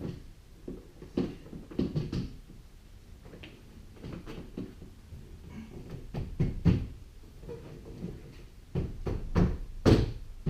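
Plastic rear door trim panel of a 2006 Honda Accord being fitted back onto the door: irregular knocks, clicks and thumps as the panel is handled and pressed into place, the loudest near the end.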